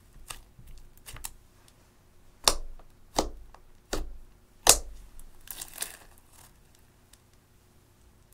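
Fingers poking into clear slime mixed with eyeshadow, making four sharp popping clicks about three-quarters of a second apart, then a short crackly squish.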